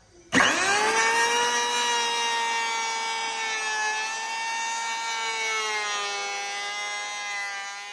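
Uchiha UC-84 electric hand planer switching on about a third of a second in, its motor spinning up quickly to a steady high-pitched whine as it planes a rough wooden board, then dying away near the end.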